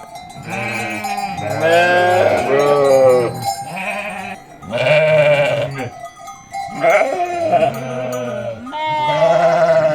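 A flock of sheep bleating, one loud wavering call after another, often overlapping.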